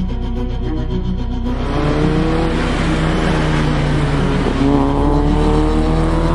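Background music, then from about a second and a half in a racing car's engine accelerating hard, its revs climbing, dropping at a gear change and climbing again. The music carries on underneath.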